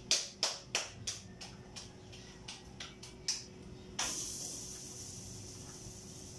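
Hand-patting of a pupusa: a ball of corn masa filled with chicharrón and cheese slapped between the palms, about three slaps a second that grow softer and stop, then two more single pats. About four seconds in a hiss starts suddenly and fades slowly.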